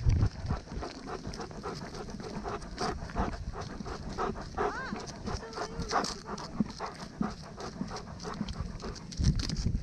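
Dog panting rapidly, close to the microphone.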